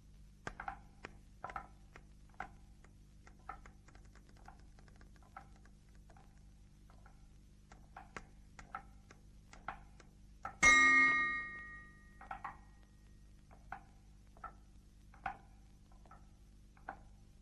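Soundtrack sound effects: light, dry percussive taps, one or two a second, marking the cartoon characters' steps, and about ten and a half seconds in a single loud ringing metallic strike that fades over a second and a half.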